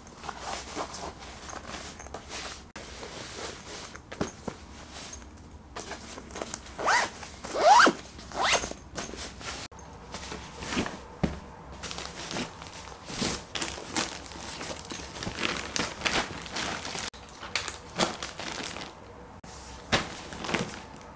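Clothes and zippered packing cubes being handled and packed into a suitcase: fabric rustling and small knocks, with a zipper drawn in short strokes about seven seconds in, the loudest sound.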